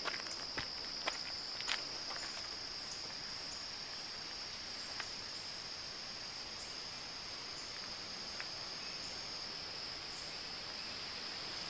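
Steady high-pitched chorus of insects singing in woodland, with a few sharp taps or clicks in the first couple of seconds and one or two more later.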